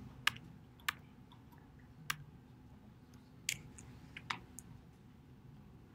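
Faint, scattered short clicks, about six of them at uneven intervals, over quiet room tone.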